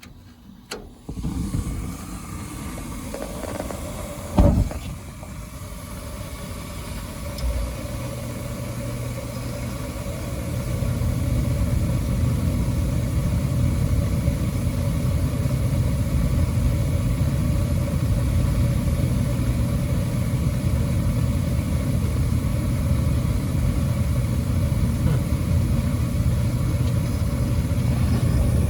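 Old Rheem gas furnace firing: a click, the gas burner lighting with a sharp poof about four seconds in, then the steady burner roar; about eight to eleven seconds in a motor hum joins and the noise grows louder and holds steady. The poof comes from the burner not all lighting at once, a sign that it is dirty and needs cleaning.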